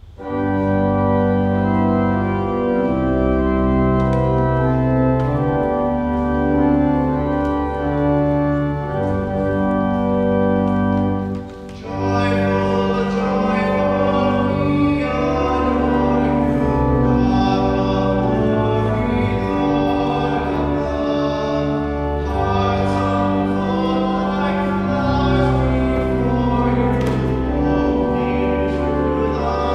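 Church organ playing a hymn in sustained chords, the recessional at the close of a funeral Mass. After a brief break about twelve seconds in, the music grows fuller as singing joins the organ.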